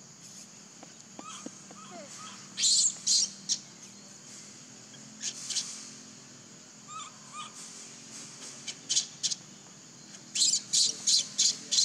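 Baby macaque giving short, high-pitched squeaks, a few in pairs and then a quick run of them near the end.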